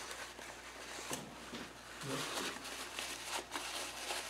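Paper towel crinkling and rubbing as it wipes rubber grease out of a steering box's seal bore, with a light knock about a second in.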